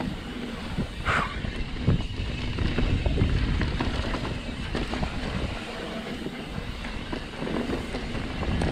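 Mountain bike riding fast down a dirt singletrack: wind buffeting the camera microphone over a steady rumble of tyres on dirt, with frequent knocks and rattles as the bike hits bumps.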